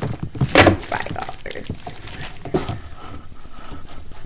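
Hands handling small plastic slime containers and packaging on a desk: a few knocks, the loudest about half a second in, with rustling between.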